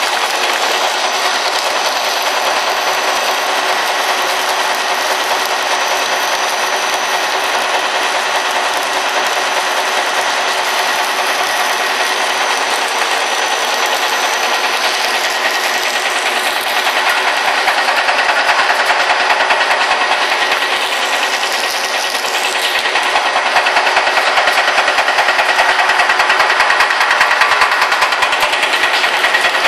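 Snack-food extruder running under its electric motor: a steady, fast mechanical clatter with a thin high whine on top. It gets somewhat louder for stretches in the second half.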